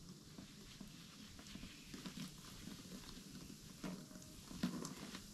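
Liquid poured from a plastic bottle over wet dreadlocks, trickling and dripping into a plastic basin below; faint, with a couple of sharper clicks about four seconds in.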